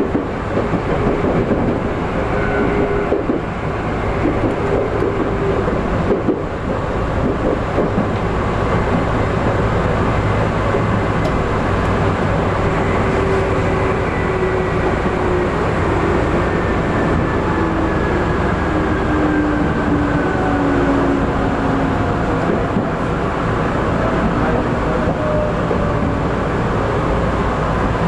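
Tokyu 8500 series electric train running at speed, heard from on board: a loud, steady running noise with the whine of its traction motors, which drops slowly in pitch in the second half.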